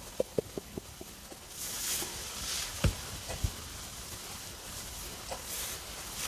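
Stomach gurgling after a meal: a quick run of small gurgling pops in the first second, then a couple of low thumps around the middle, with soft hissing between.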